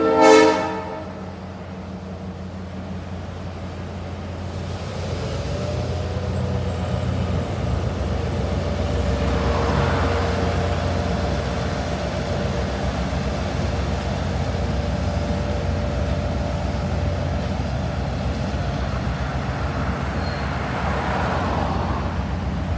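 A flatbed semi truck passes close in the first second, the loudest moment. Then a diesel locomotive's engine rumbles steadily, growing louder over the first several seconds, as it hauls passenger cars across a steel girder bridge overhead. A car passes on the road below about ten seconds in.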